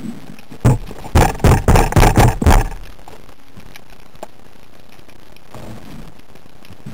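A spearfisher's underwater richiamo, the attracting call used to draw in mullet: one short pulse, then a quick run of about six more at roughly four a second, over steady underwater hiss.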